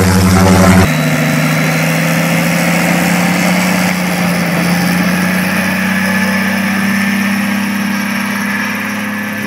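RED A03 V12 diesel aircraft engine running with its propeller, loud and steady, on a test stand. About a second in it gives way to the same engine in a Yak-52 trainer: a steady propeller-engine drone whose pitch rises slowly as the plane rolls off down the runway.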